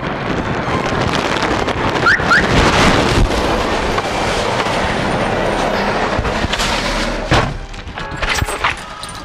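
Street traffic passing close by: a truck and cars going past with dense, steady road noise that eases off near the end. Two short, high rising squeaks come about two seconds in.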